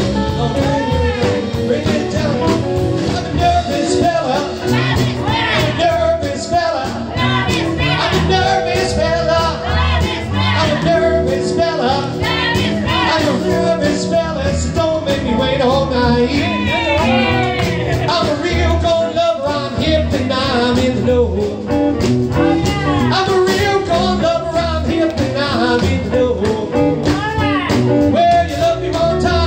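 A live blues/rock-and-roll band playing, with electric guitar and drums, and a man singing into a microphone.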